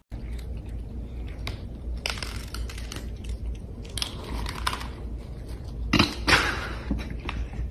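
A cat crunching dry kibble from a bowl: irregular crisp crunches, with a louder cluster about six seconds in.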